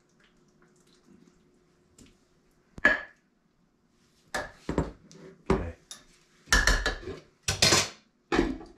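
Metal serving spoon clinking and scraping against a slow cooker's crock and a ceramic bowl while chicken and dumplings are dished out: one sharp knock about three seconds in, then a run of clinks and knocks from about halfway, with the slow cooker's lid set back on near the end.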